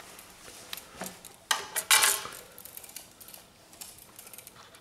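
A few light clicks, then a short clatter of small hard objects being handled about a second and a half in, followed by faint ticking.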